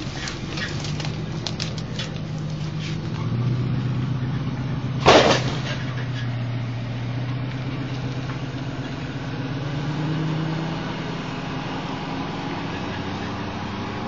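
Pickup truck engine running as it pulls an empty flatbed trailer away, the hum rising and falling slightly in pitch. A few light rattles in the first seconds and one sharp metal clank about five seconds in, typical of the empty trailer jolting over ruts.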